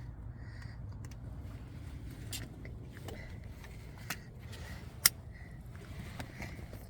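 Car seat belt being fastened by hand: the webbing and metal buckle give a few sharp clicks, the loudest about five seconds in, over a steady low rumble inside the car.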